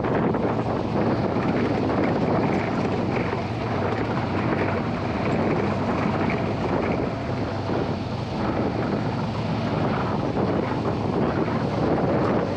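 Heavy wind buffeting the microphone over a moving off-road UTV, a steady rushing noise with no clear engine note.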